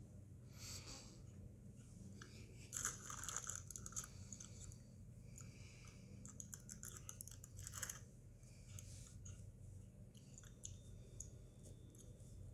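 Cheetos cheese snacks being chewed, faint crunching in bursts, loudest about three seconds in and again near eight seconds.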